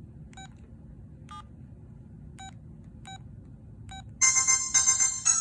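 Audiovox CDM-8900 cell phone giving five short key beeps about a second apart as its menu is worked, then a ringtone melody starting loudly about four seconds in.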